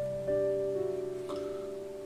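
Background music of soft, held notes that change in pitch every half second or so.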